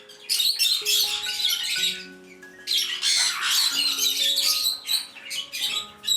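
A flock of budgerigars chattering and squawking in rapid, shrill bursts, with background music of sustained notes underneath.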